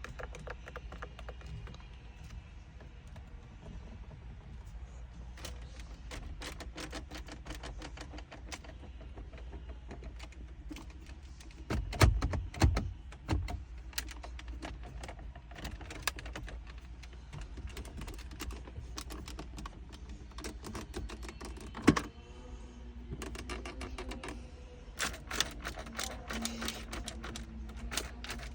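Mercedes-Benz GLC cabin trim creaking and clicking in irregular, rapid ticks over a steady low road rumble, with a few louder knocks about twelve seconds in and once more near twenty-two seconds. The rattles point to poorly fitted interior assembly.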